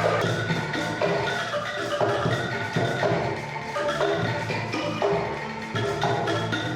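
Angklung ensemble playing a tune: tuned bamboo tubes shaken in their frames sound chords and melody notes that change about every half second.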